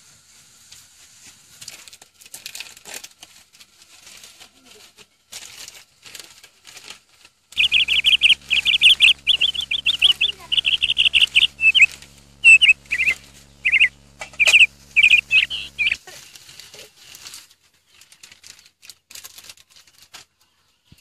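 A bird chirping loudly in a rapid string of short calls for about eight seconds in the middle, with a low steady hum beneath; faint clicks and rustles before and after.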